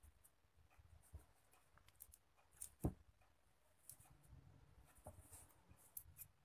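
Near silence with faint rustles and soft clicks of hands handling a silk-thread-wrapped bangle, and one sharper click a little before three seconds in.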